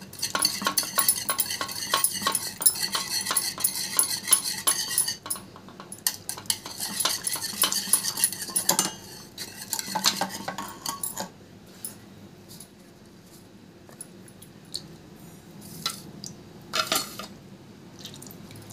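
Metal ladle stirring in a steel pot of liquid, with rapid clinking and scraping against the pot's sides that pauses briefly about five seconds in and stops about eleven seconds in. After that come only a few scattered clinks and one louder clatter near the end.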